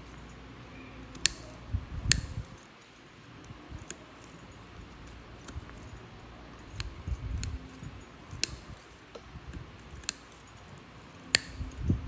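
Nail nippers cutting a thick, crumbling toenail: a series of sharp snaps as the jaws bite through the nail, the loudest about five, with low handling thumps in between.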